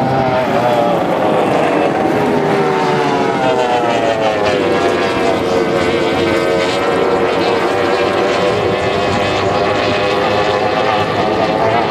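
Formula 2 race boats' outboard engines running flat out on a racecourse. The pitch of the loudest engine falls over the first few seconds as a boat passes, then holds steady under other boats' engines.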